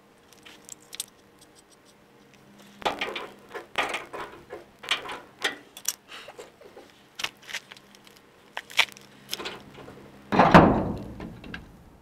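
Metal clinking and rattling as tools and hardware are handled, a string of sharp clanks, ending in one loud heavy thud near the end.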